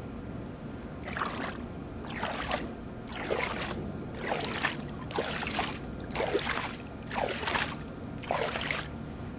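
Swimming-pool water sloshing and slapping against the pool edge right by the microphone, in a regular rhythm of about one slosh a second, eight in all.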